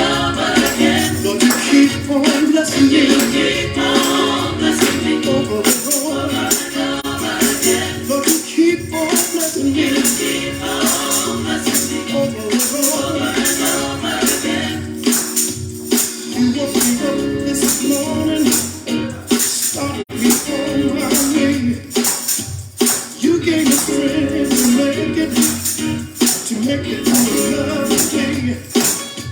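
Gospel church music with a steady shaken-percussion beat and singing.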